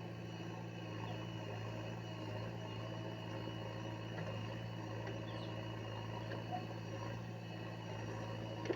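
Heavy diesel engine running at a steady speed, with a short sharp knock near the end.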